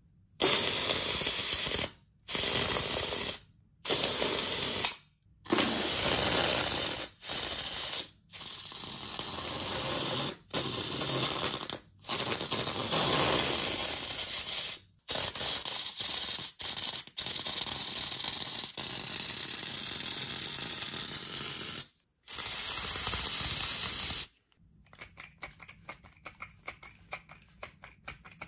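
Spider-Man Super Web Slinger toy spraying web fluid, a silly-string-type aerosol: loud hissing sprays in about a dozen bursts of one to three seconds, each cut off abruptly. Near the end comes a run of quieter rapid clicks.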